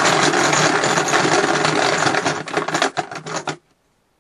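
A small machine running steadily with a fast rattle, then cutting off abruptly about three and a half seconds in.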